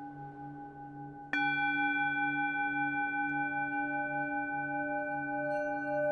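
Singing bowl tones in D ringing with a slow waver. About a second in, a bowl is struck and rings out loud and sustained over the drone.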